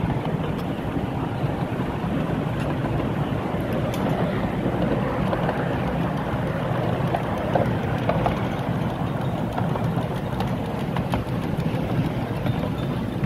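A 10¼-inch gauge miniature steam train running along, heard from a riding carriage. Its wheels make a steady rumble on the rails, with a few faint clicks.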